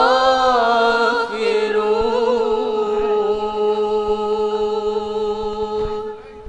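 Voices singing an Islamic devotional chant (inshad) in Arabic, sliding up into one long held closing note that wavers slightly and fades out near the end.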